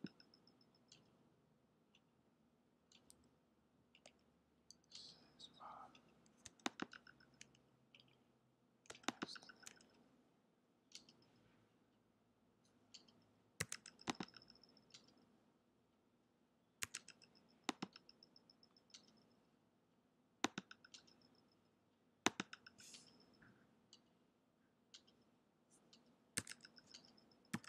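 Computer mouse clicking in short runs of two or three quick clicks every few seconds, selecting mesh faces one at a time in Blender.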